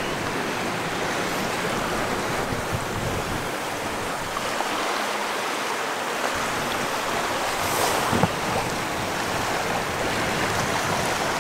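Steady rush of wind and water around a sailing yacht under way, with wind buffeting the microphone. A short knock about eight seconds in.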